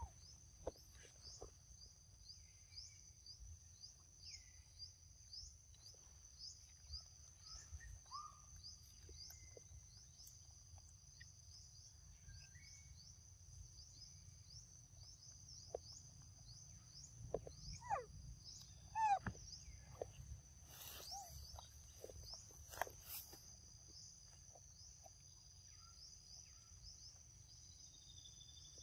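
Faint insect chorus: a steady high-pitched trill that pulses regularly, over a low rumble of outdoor background noise. Around the middle, a few short falling calls sound, the loudest event, followed by a couple of sharp clicks.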